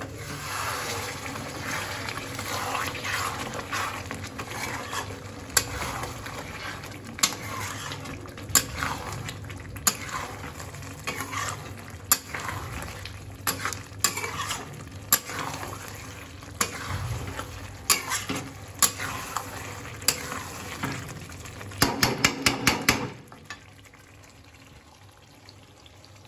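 Metal spatula stirring chicken curry in a steel kadai, scraping and clacking against the pan over the sizzle of the cooking gravy. Near the end comes a quick run of clacks, then the stirring stops and only a faint simmer is left.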